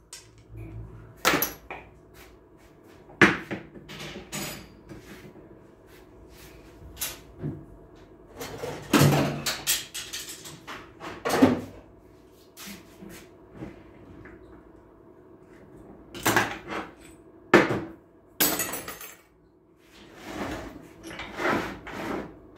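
Irregular clanks and knocks of steel automatic-transmission parts, clutch drums among them, being handled and set down on a metal workbench. Some strikes ring briefly, over a faint steady hum.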